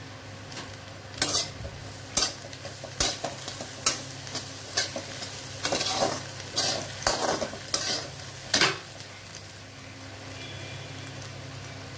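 A slotted metal spatula scrapes and tosses boiled horsegram sundal around a metal pan, about one stroke a second, stopping about nine seconds in. A steady low hum runs underneath.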